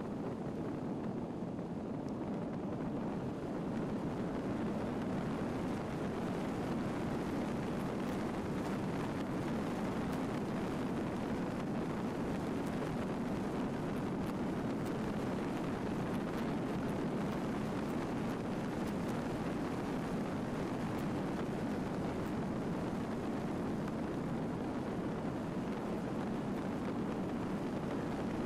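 A vehicle driving along a gravel road: a steady rumble of tyres on gravel and road noise, getting a little louder a few seconds in and then holding steady.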